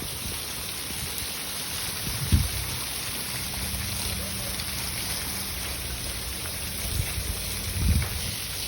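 Steady rush of a waterfall and flowing spring water, with two short low thumps about two seconds in and near the end.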